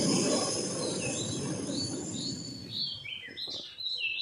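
Birds calling with short, clear whistled chirps that come more and more often through the second half. Under them, a low rushing noise fades away over the first three seconds.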